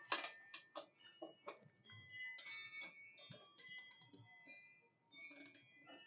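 Ratcheting torque wrench clicking as it tightens a motorcycle's rear axle nut toward 70 newton metres, a run of uneven ticks, most of them in the first second and a half. Faint background music plays under it.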